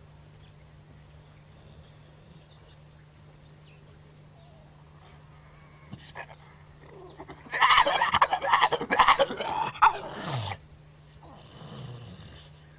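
A brindle bulldog-type dog lets out a loud, rough, drawn-out growling roar of about three seconds that drops in pitch as it ends, followed about a second later by a quieter, shorter one.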